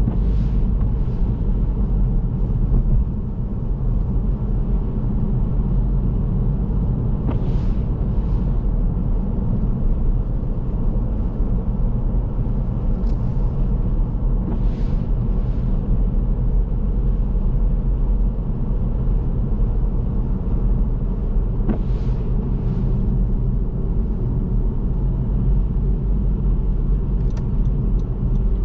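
Strong snowstorm wind buffeting the microphone: a steady, loud low rumble, with a few brief hissy gusts rising over it.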